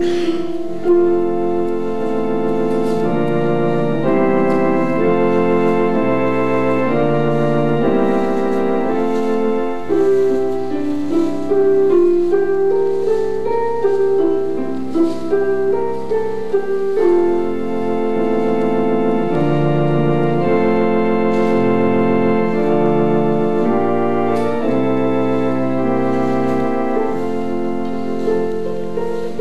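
Organ music: slow chords with notes held steadily and changing every second or two.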